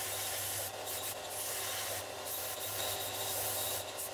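Clarke 4" x 36" bench belt sander running with a Micarta pick handle pressed against the moving belt by hand. A steady motor hum sits under the rasp of the abrasive on the resin laminate, and the rasp swells briefly a few times as the piece bites harder.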